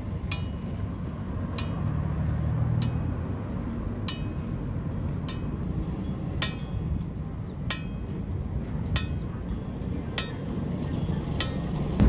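Metal being struck in an even rhythm, one sharp ringing clink a little more than once a second, about ten in all, over a steady low rumble.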